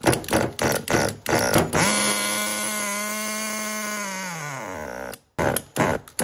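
A 15-size nitro glow engine in an RC touring car being pull-started. A series of quick starter pulls lets it catch, and it runs at a steady high buzz for about three seconds. Its pitch then sinks and it stalls, and a couple more pulls follow. The engine will not yet stay running and still needs tuning.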